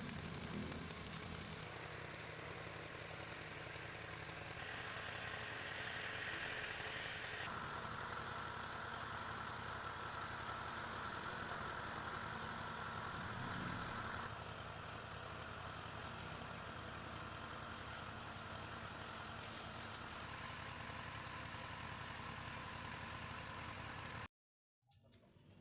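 High-pressure washer running with a steady hiss of water spray over the motor's hum, changing abruptly several times as if cut between shots, then cutting out to silence near the end.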